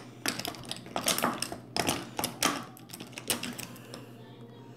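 Clicking and clattering of makeup items being picked up and set down while she reaches for a brush: about half a dozen sharp clicks in the first three and a half seconds, then quieter, over a low steady hum.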